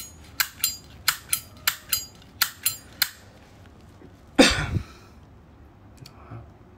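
Brass Zippo lighter handled: about ten sharp metallic clicks of the hinged lid in quick succession, then one louder knock with a short rasp about four and a half seconds in.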